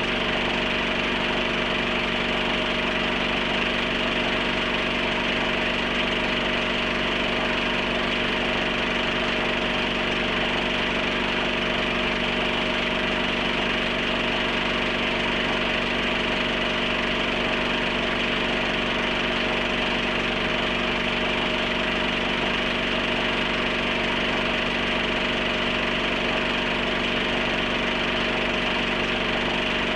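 Steady mechanical drone: a constant hum with a hiss above it, unchanging.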